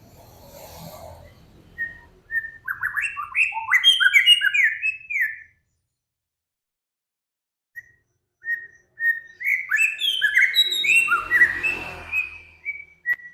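A songbird singing two loud phrases. Each opens with a few separate whistled notes and runs into a rapid string of short sweeping notes, with a pause of silence between the phrases.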